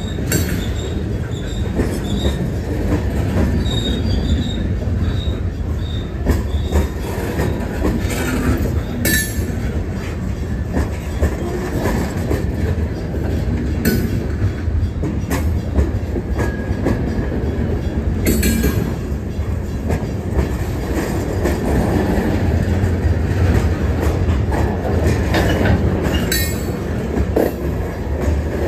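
Freight cars (open-top cars, then covered hoppers) rolling past close by: a steady rumble of steel wheels on the rails. A few sharp clanks come at intervals, and faint wheel squeal rises now and then.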